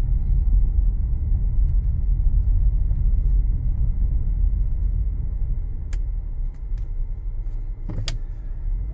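Steady low rumble of a car driving, engine and tyre noise heard from inside the cabin, with a couple of brief clicks in the second half.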